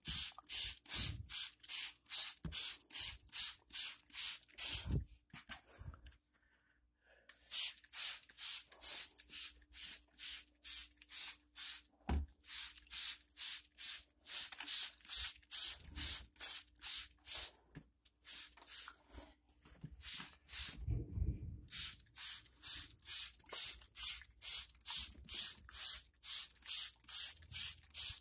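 Trigger spray bottle squeezed rapidly, misting water onto plant leaves: short hissing sprays about three a second, in runs broken by a few brief pauses.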